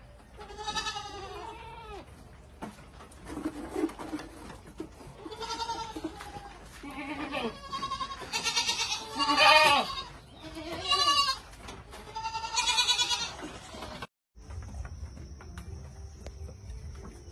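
Boer goats bleating repeatedly, several overlapping quavering calls, the loudest about halfway through. After a brief break near the end, a steady high-pitched whine takes over.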